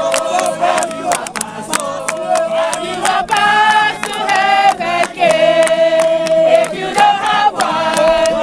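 A crowd singing together in chorus, with hand claps keeping time throughout.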